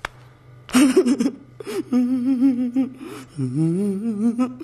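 A man's voice: a short outburst, then two long quivering, wavering whimpering hums, the second starting low and sliding up.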